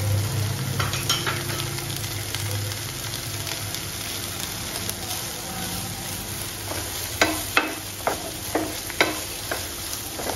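Sweet corn kernels and onions sizzling in a nonstick frying pan as a wooden spatula stirs them; the freshly added corn is giving off its water. From about seven seconds in, the spatula's strokes knock against the pan about twice a second.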